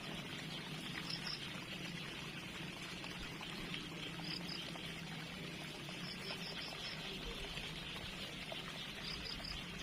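Steady trickle of flowing water, with short runs of high chirps coming back every second or two.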